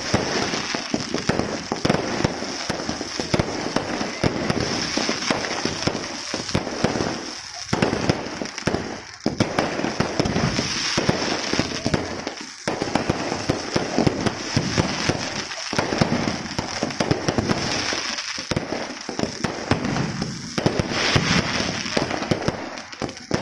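Fireworks display going off continuously: a dense barrage of bangs and crackling from aerial shells and fountains over a steady high hiss, with only brief lulls.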